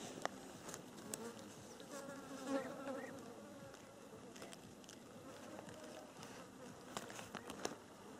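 A flying insect buzzing close by, strongest about two to three seconds in. Faint clicks and rustles from hands handling a freshly caught crucian carp come now and then, several near the end.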